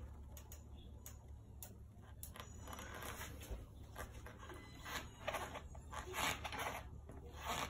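DNM USD-6 upside-down air fork being pushed down and rebounding, with irregular light clicks and knocks and a few short, louder rushing sounds in the second half. The fork is being tested after fork oil was added to its rebound leg, which had come without oil.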